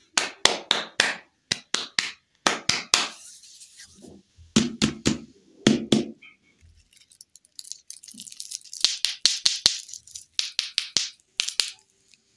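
Hands tapping and patting, a quick irregular series of sharp taps with a few duller pats in the middle.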